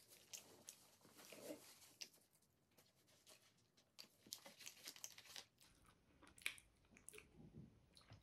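Faint chewing and mouth clicks, with a plastic water bottle picked up and handled in the second half.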